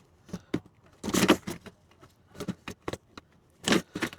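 Irregular plastic clicks, knocks and rattles from a headlight bulb socket and its wiring being twisted and worked loose in the headlight housing, which is catching on something. There are two louder scraping rattles, one about a second in and one near the end.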